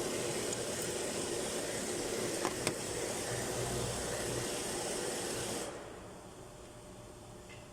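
Steady whooshing mechanical noise with a hiss, a couple of faint clicks in the middle, dropping to a much fainter hum a little under six seconds in.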